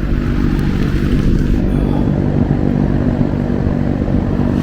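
A loud fan running: a steady mechanical hum at a fixed pitch that does not rise or fall.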